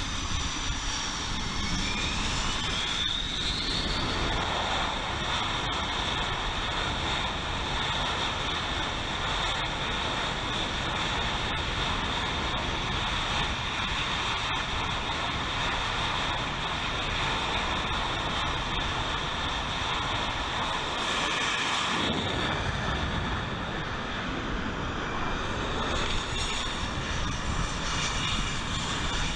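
F/A-18F Super Hornet's twin jet engines running at high power on a carrier catapult during final checks, with a whine that rises in pitch a few seconds in. About three-quarters of the way through, the noise changes as the jet is shot off the catapult.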